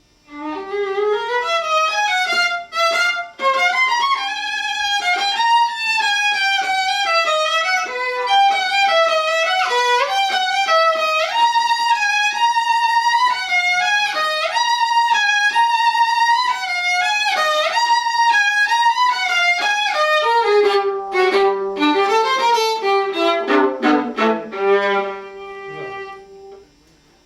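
Solo viola played with the bow: a flowing melodic passage in the upper register that moves down into the lower strings about twenty seconds in, ending on a long held note that fades out near the end.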